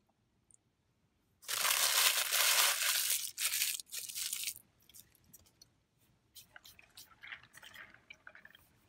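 Loud, close-up crackling and crunching from eating and handling food. It lasts about two seconds, then comes in a few shorter bursts, with softer crackles near the end.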